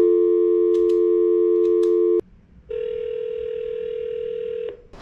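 Apartment entry call box sounding through its speaker: a loud, steady two-note ringing tone for about two seconds, then after a short gap a quieter single steady tone for about two seconds, which ends as the entry door is released. A few faint clicks come over the first tone.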